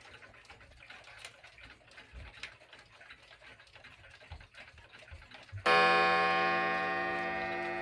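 Alaron 31-day Korean wall clock ticking faintly. About five and a half seconds in, its hammer strikes the gong once, the single passing strike for the half hour, which rings on with a long, slowly fading tone.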